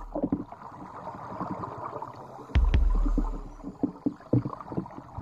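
Underwater sound through a submerged camera: scattered gurgling clicks and pops, then, about halfway through, a sudden low rumble of scuba exhaust bubbles that fades over about a second.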